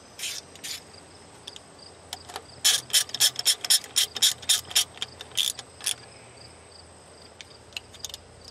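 Socket ratchet clicking as the bleeder screw on a diesel fuel filter housing is turned closed once the bleeding runs straight fuel: two single clicks, then a run of about a dozen clicks at three to four a second.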